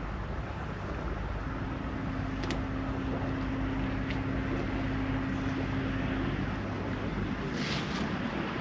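Steady low outdoor rumble with a single steady low hum that sets in about a second and a half in and lasts about five seconds, plus a few faint clicks and a short hiss near the end.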